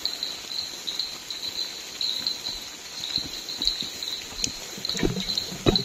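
Crickets trilling steadily, with a few soft thuds in the second half and sharper knocks near the end.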